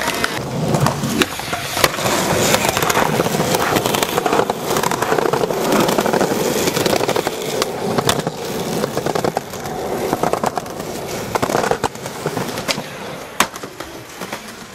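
Skateboard wheels rolling loudly over rough asphalt and concrete, with a few sharp wooden clacks of the board popping and landing.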